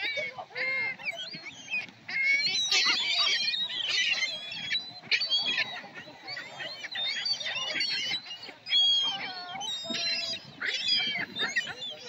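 A flock of gulls being fed, many calling at once in short overlapping cries, busiest a few seconds in.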